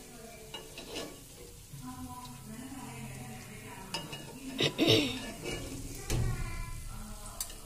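Oil sizzling in an unniyappam pan as fried morappam balls are scooped out with a metal spoon and a wire-mesh strainer. A few sharp metal clinks and scrapes of spoon and strainer against the pan, the loudest about five seconds in.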